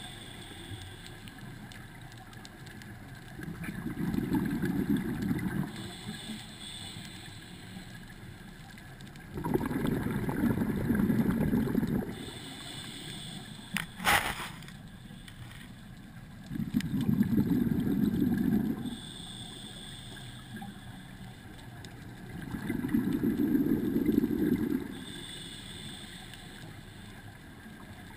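Scuba diver breathing through a regulator underwater: a short inhale hiss, then about two seconds of bubbling exhaled air, repeating about every six seconds. A sharp click about halfway through.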